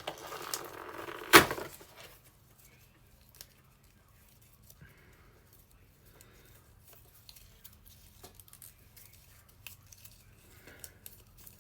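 Toy packaging being handled: plastic and cardboard rustling, with one sharp snap about a second and a half in, then faint scattered clicks and rustles.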